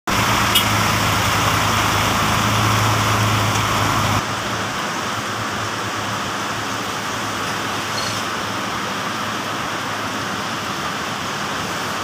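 Heavy monsoon rain from Typhoon Noru falling steadily on wet pavement, a continuous hiss. A low hum runs underneath and stops suddenly about four seconds in.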